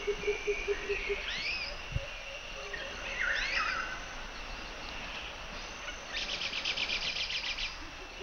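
Nature-documentary wildlife ambience: repeated swooping bird calls over a steady hiss, a fast pulsing call in the first second, and a rapid trill from about six seconds in.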